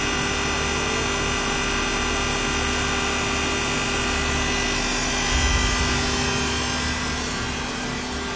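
Hydraulic diamond core drill running steadily with a grinding noise and a constant whine, cutting. A heavier low rumble swells about five seconds in and eases a second later.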